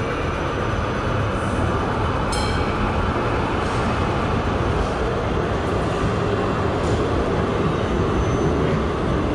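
Melbourne tram running along the street in a steady rumble, with a short metallic ring about two seconds in.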